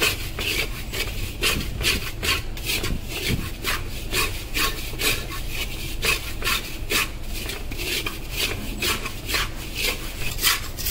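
Metal spatula scraping and stirring dried, crystallised sugar around a steel kadhai: rapid repeated rasping strokes, about two to three a second, as the cooked-down syrup breaks up into dry granules.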